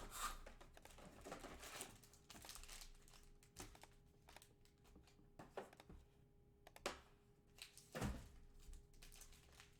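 Faint crinkling and rustling of trading card packs and their wrappers being handled and torn open, with scattered small clicks and a few sharper knocks, the loudest about eight seconds in.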